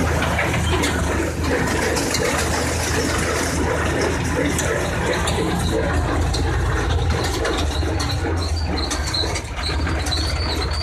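Tractor engine running steadily under load while it pulls a working pick-up baler, heard from inside the cab. A thin, wavering high squeal joins from about halfway.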